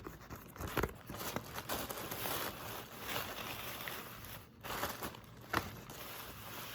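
Tissue paper and packaging rustling and crinkling as items are handled and unpacked, with a few light knocks.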